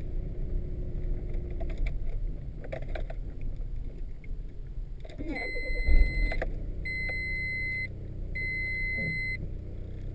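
Car engine running steadily, with some light rattling clicks a few seconds in and a thump near the middle. Three electronic beeps, each about a second long and half a second apart, sound in the second half.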